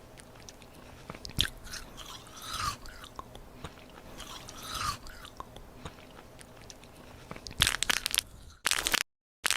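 Close-miked eating: crisp food being bitten and chewed with irregular crunches, louder and more frequent near the end before the sound cuts out.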